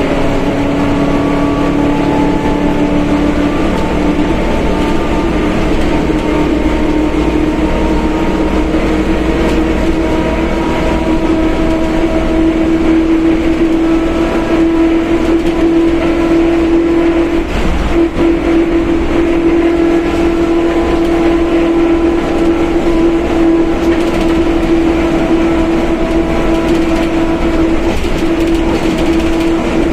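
Mercedes-Benz OF1721 BlueTec 5 bus under way with its differential droning loudly: a strong, steady gear whine over the running and road noise. The whine rises slightly in pitch through the first half, then holds, with a brief dip a little past halfway.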